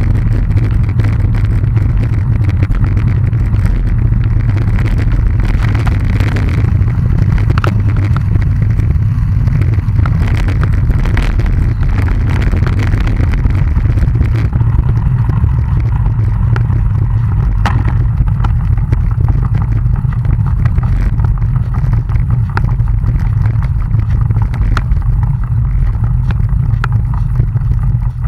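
Steady low rumble of wind buffeting a moving camera's microphone, with scattered faint clicks.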